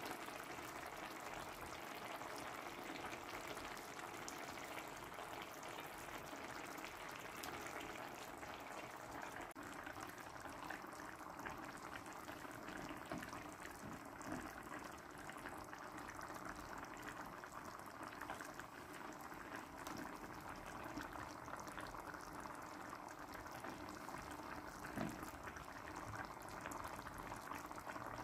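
Tomato broth simmering in a wide steel pan, a faint steady bubbling.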